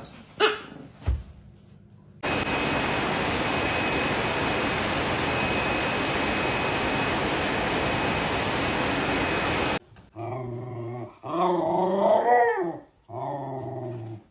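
A loud, steady rushing noise runs for about seven seconds and cuts off suddenly. A dog then gives several drawn-out, grumbling whine-like calls.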